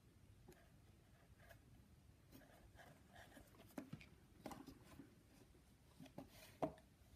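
A cat rummaging in a cardboard box, its paws and a toy faintly scraping and rustling against the cardboard, with a few short knocks. The sharpest knock comes near the end.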